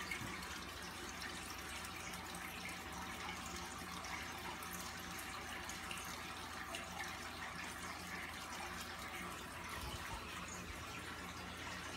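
Aquarium hang-on-back filter running: steady trickling and splashing of water, over a faint low hum.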